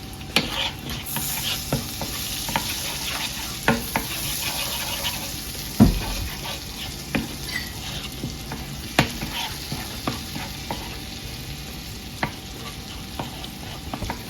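Honey-butter-garlic glaze sizzling in a hot frying pan while a utensil stirs it, scraping and tapping against the pan again and again, with one louder knock about six seconds in.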